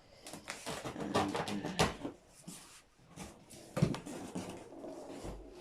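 A cardboard carton being opened by hand, with packing paper rustling and crinkling, and two sharper knocks about two and four seconds in.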